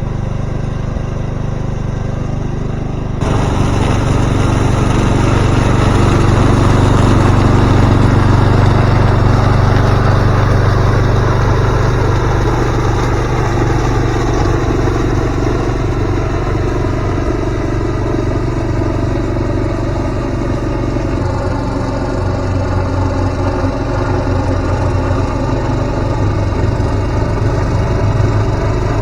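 Craftsman mower's small engine running steadily after its valve seat repair, getting louder about three seconds in and then holding steady.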